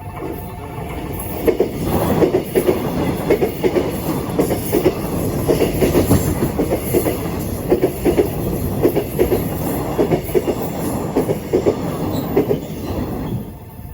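A train passing over a level crossing, its wheels clacking repeatedly over the rail joints and crossing. The noise swells about a second and a half in and dies away near the end.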